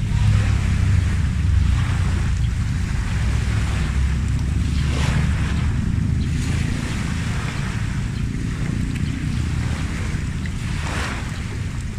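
Wind buffeting the microphone as a steady low rumble, with a few swells of hissing noise like surf or wind-blown rustle rising and fading over it.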